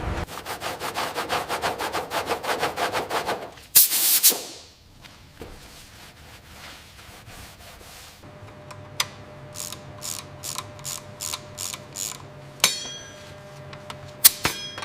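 Mechanical ratcheting: a fast run of clicks, about seven a second, then a short loud burst of hiss about four seconds in. After that comes a steady hum with a slower, uneven series of clicks.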